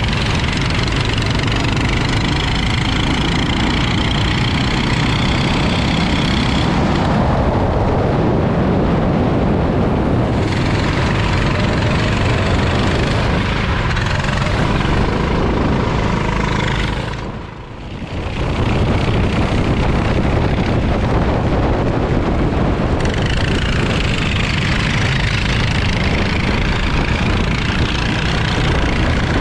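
Rental go-kart's single-cylinder Honda engine running hard around the track, mixed with wind rush; the sound drops away briefly about two-thirds of the way through, then picks up again.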